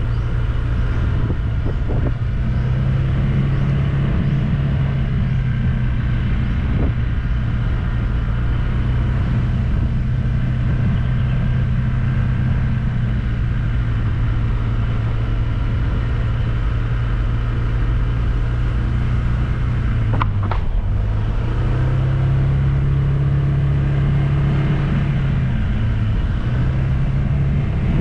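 Engine of a moving road vehicle running steadily under a constant rumble; its pitch drops briefly about twenty seconds in, then rises again.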